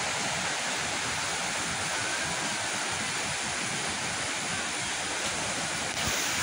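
Steady rush of a rocky river's rapids and small waterfalls, growing a little louder near the end.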